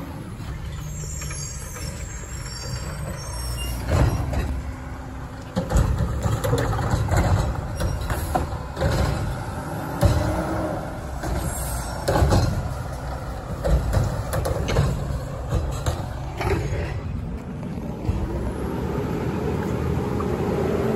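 Automated side-loader refuse truck's diesel engine running in a steady low rumble, with a string of sharp clanks and bangs spread through the stretch, about one every two seconds, as the truck works its cart arm.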